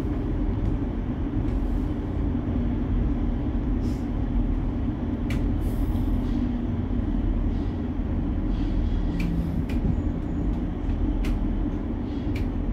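Cologne Stadtbahn car running between stations: a steady low rumble of wheels on rails, with a few sharp clicks and squeaks from the track.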